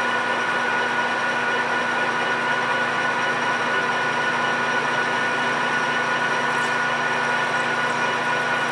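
PM1660 manual engine lathe running at about 600 RPM, with a carbide insert taking a facing cut across the end of a 6061 aluminum bar. It is a steady machine hum with several constant tones from the headstock and chuck, plus a few faint light ticks about two-thirds of the way through.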